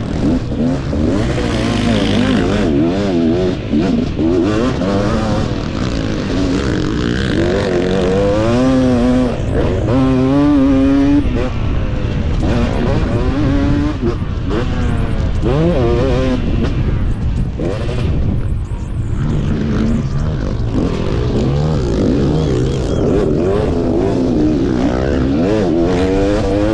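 KTM 250 SX two-stroke motocross engine racing, revving up and dropping again and again as the rider works the throttle and gears over the track.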